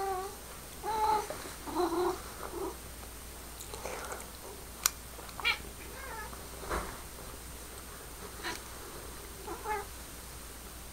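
A domestic cat talking in a string of short meows and chirps, about eight brief calls in bursts, the strongest in the first few seconds. The calls are aimed at a laser-pointer dot that she is watching. A sharp click sounds about five seconds in.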